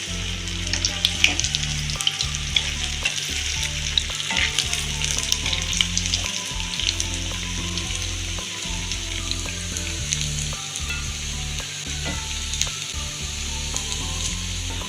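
Medu vada, urad dal batter fritters, deep-frying in hot oil: a steady sizzle with many small crackles and pops.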